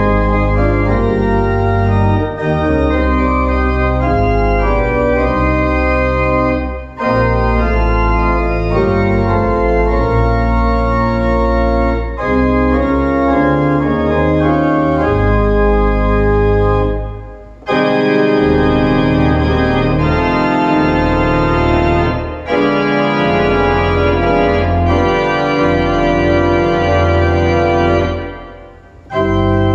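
Church organ playing a hymn arrangement in full sustained chords over a deep pedal bass, with short breaks between phrases about every five seconds.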